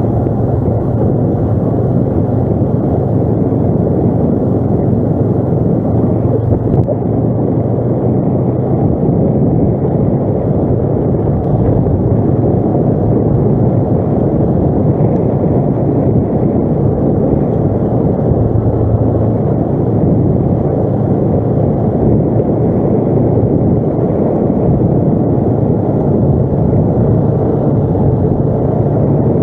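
ATV engine running steadily and loudly under way, with no pauses or changes.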